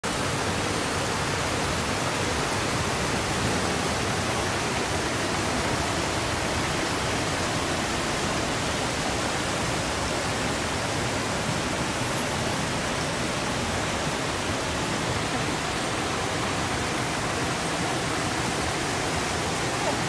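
Water rushing over rocks and small cascades in a shallow stream: a steady, unbroken rush.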